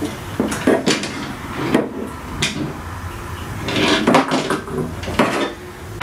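Hard objects being handled and set down on a wooden cabinet shelf: a series of irregular knocks and clatter, loudest about four seconds in.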